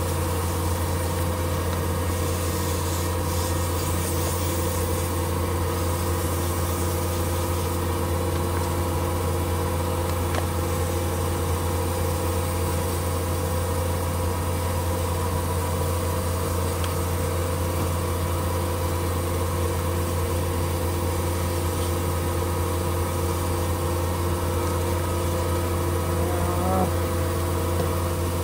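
Metal lathe running at a steady speed with a constant low hum, while sandpaper is held against a tungsten button spinning in the chuck to sand and finish it.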